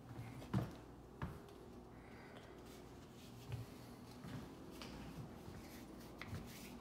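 Quiet small-room tone with a faint low hum, broken by a few soft knocks and clicks, the sharpest about half a second in: someone moving about and handling a door.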